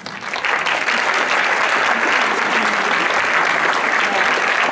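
Audience applause, building in the first half second and then steady.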